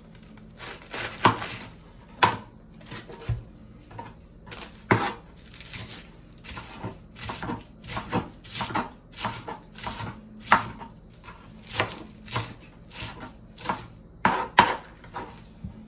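Knife chopping lettuce on a cutting board: a run of short, irregular cuts, about two a second.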